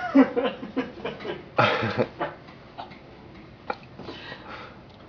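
A man's short wordless vocal sound, then a louder noisy burst about a second and a half in, followed by a few light clicks.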